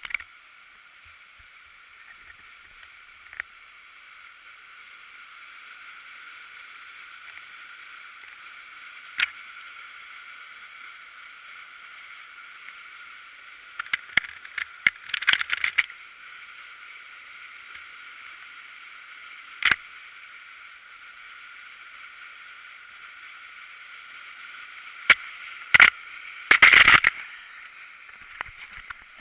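River waterfall rushing steadily, with a few sharp knocks and clicks scattered through it and two louder crackling clusters, about midway and near the end.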